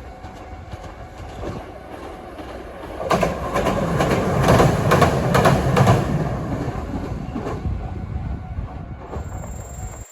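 A train passing close by: a rumble that builds about three seconds in, with the wheels clattering over rail joints, loudest between about four and six seconds in, then fading away.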